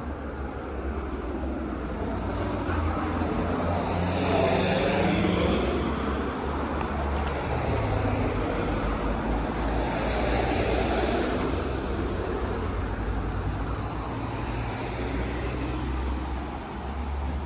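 Road traffic: cars driving past one after another, the tyre and engine noise swelling and fading, loudest about four seconds in and again about ten seconds in.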